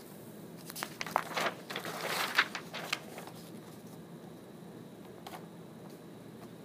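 Handwriting on a tablet touchscreen: a cluster of quick taps and scratchy strokes lasting about two seconds, then a single tap a couple of seconds later.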